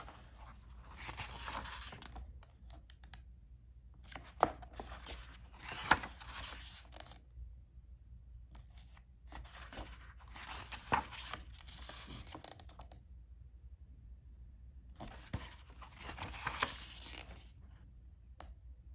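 Picture-book pages being turned and pressed flat by hand: paper rustling and sliding in four bouts, with a few sharp crackles of the page.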